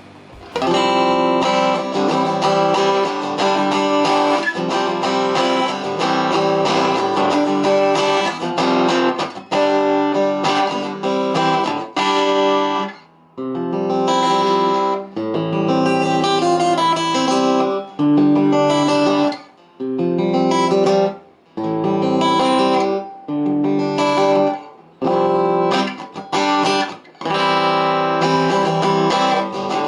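Acoustic guitar strummed in chords through a Topsound A20 acoustic guitar amplifier, its EQ set with mid-low and low at full and high and mid-high at middle, giving a somewhat bassy, thicker tone. The chords stop briefly several times in the second half.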